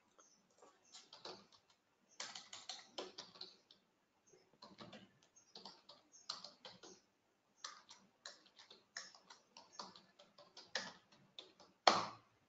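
Computer keyboard being typed on in quick, irregular runs of faint key clicks, with one louder click near the end.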